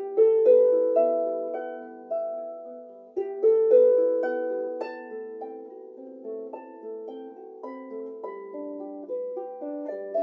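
Improvised slow music on a plucked string instrument: notes and chords struck and left ringing as they fade. The loudest plucks come near the start and about three seconds in, and the playing is softer and more even after that.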